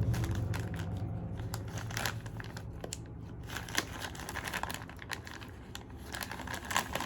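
Plastic blind-box bag crinkling and tearing as it is opened by hand, with scattered sharp crackles.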